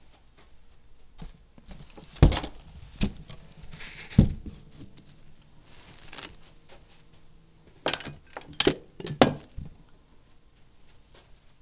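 Close handling noise: rustling with scattered knocks and clicks. There are sharp knocks about two, three and four seconds in, and a cluster of three between about eight and nine seconds.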